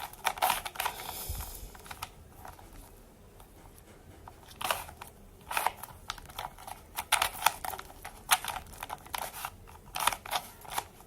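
Plastic Rubik's cube being turned by hand in quick runs of irregular clicks and clacks, with a quieter lull a couple of seconds in. The cube is a stiff one whose movement is not fluid.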